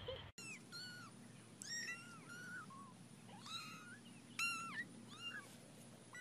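Young kittens mewing: a string of short, thin, quiet mews, each rising then falling in pitch, about ten of them in quick succession.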